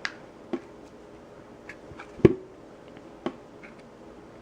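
Four sharp clicks and knocks of metal and polymer parts as a Glock 30 Gen4's backstrap retaining pin is worked into the frame. The loudest, a little past two seconds in, rings briefly.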